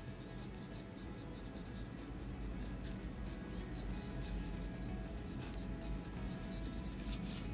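Colored pencil scratching on drawing paper in quick, short strokes.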